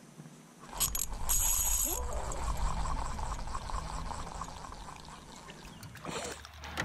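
A fish being hooked and reeled in on a spinning rod, with rustling handling noise and a low rumble starting about a second in. Near the end a hooked perch splashes at the surface.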